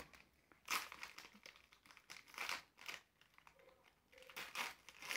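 Plastic biscuit wrapper being torn open and crinkled by hand, in several short, irregular bursts of crackling.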